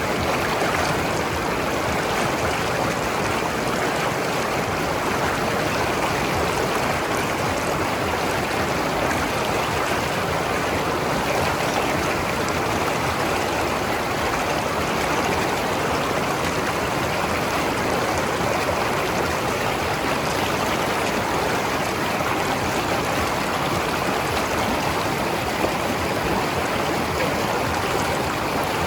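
Mountain river flowing steadily over rocks, a continuous rushing and gurgling of water.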